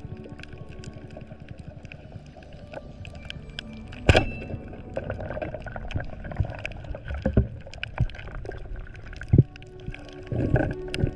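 Underwater sound of a reef, full of small scattered clicks and crackles, with one sharp loud crack about four seconds in: a rubber-band speargun firing at a surgeonfish.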